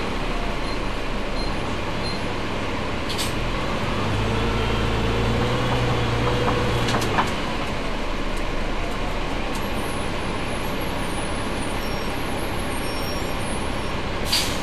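Double-decker bus running in service, heard on board as steady mechanical and road noise. Its engine and driveline drone grows stronger with a slowly gliding tone from about four to seven seconds in. A few sharp clicks and a knock come through, the loudest near the end.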